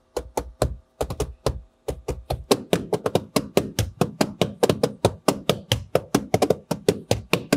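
Background music with a fast, steady percussive beat.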